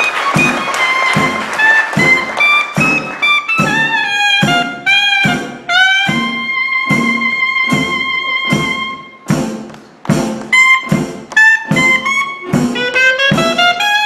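Traditional New Orleans jazz band playing live, the clarinet carrying the melody over a steady beat from the rhythm section. About six seconds in the clarinet holds one long note for roughly three seconds before returning to shorter phrases.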